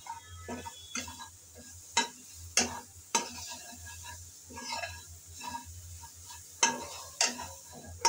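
Spatula scraping and knocking against a metal karai while spices and chopped chillies are stirred and fried, with several sharp knocks at irregular intervals. A light sizzle of the frying masala runs underneath.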